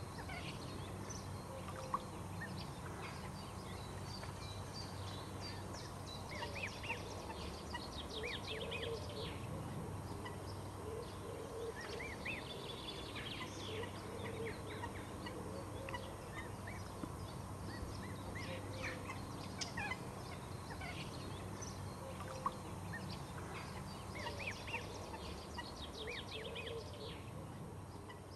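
Mallard ducklings peeping in quick runs of short high calls, with the hen's soft low quacks among them, over a steady low hum.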